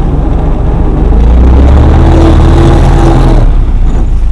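GAZ-67's four-cylinder side-valve engine running as the jeep drives along a dirt road. About a second in it pulls harder and gets louder, its pitch creeping up, then it eases off near the end.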